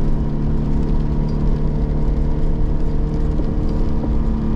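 Steady drone of a car's engine and tyres, heard from inside the cabin while driving along a curving road.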